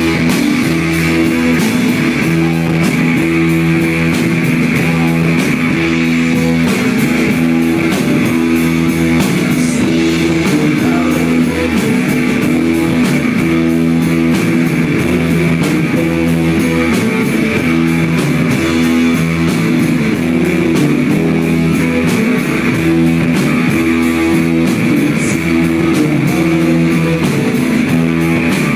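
Live rock band playing: an electric guitar figure repeating over steady drums and bass.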